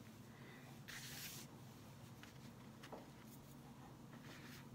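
Faint rustling of polyester fiberfill being pushed into a felt chicken with a wooden stick, with one brief, slightly louder rustle about a second in and a couple of light ticks later.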